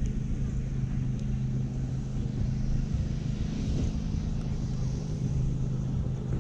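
A steady low motor hum, with an uneven low rumble of wind on the microphone.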